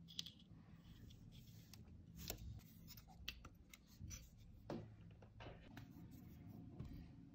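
Faint, scattered light taps and clicks of a small carved wooden model being handled, its wooden parts and cover knocking together, over a low steady hum.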